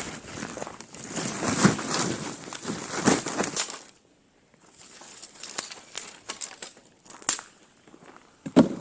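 Dry leaves and twigs rustling and crackling in irregular bursts. The sound cuts out briefly about four seconds in, then scattered snaps and clicks follow.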